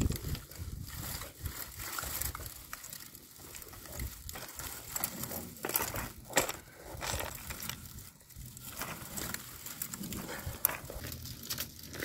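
Irregular crackling and rustling of a bundle of dry brushwood being tied with rope and shifted about on stony gravel.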